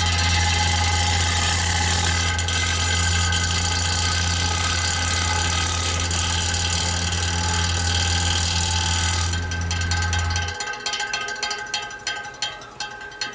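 Homemade desi air cooler's fan motor running loud, with a strong steady hum and several high whining tones. The whine cuts out about nine seconds in and the hum just after, leaving scattered clicks and rattles.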